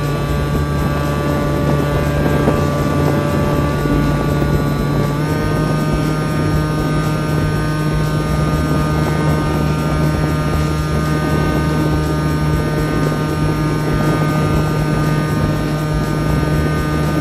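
Electric motor and propeller of a HobbyKing Bix3 RC plane running steadily in flight, recorded from a camera mounted on the plane. The whine steps up in pitch about five seconds in as the motor speeds up, then holds steady.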